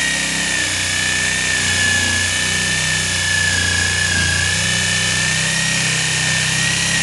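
Corded jigsaw cutting lengthwise through a clamped wooden board in a freehand rip cut. Its motor whine is steady and high, with a lower buzz from the blade beneath, and the pitch wavers slightly as the blade works through the wood.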